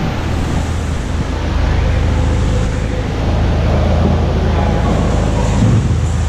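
Machinery running with a steady low hum under an even, constant noise.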